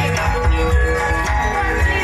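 Gamelan ensemble playing dance accompaniment, with low drum beats several times a second under sustained higher melodic lines.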